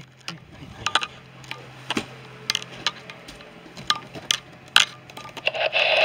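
Irregular sharp clicks and knocks from a handheld camera being moved about, over a steady low electrical hum, with a louder rush of noise near the end.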